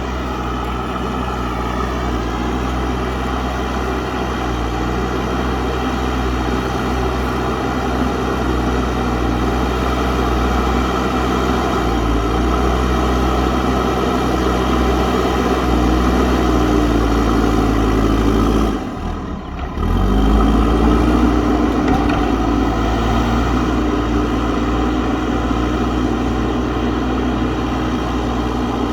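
JCB backhoe loader's diesel engine running steadily under working load, with a short dip in the sound about two-thirds of the way through before it picks up again.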